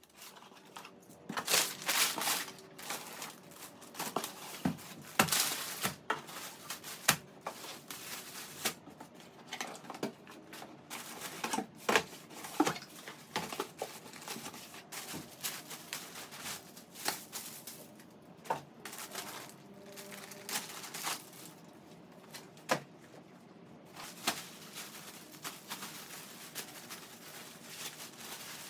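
Unpacking a cardboard shipping box by hand: plastic garment bags crinkling and cardboard flaps and shoe boxes scraping and knocking, in irregular rustles and sharp clicks.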